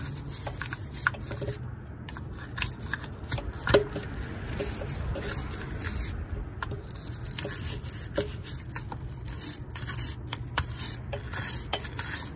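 Wire brush scrubbing the inside of a throttle body bore: a continuous scratchy scraping with many irregular sharp ticks as the bristles work over the metal. The bore is being dry-brushed to loosen dirt and carbon before it is sprayed with throttle body cleaner.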